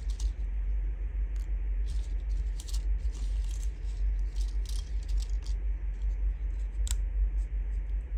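Light rustles, taps and small clicks of paper pieces and a cut-out being handled and pressed down on a tabletop, with a sharper click about seven seconds in. A steady low hum runs underneath.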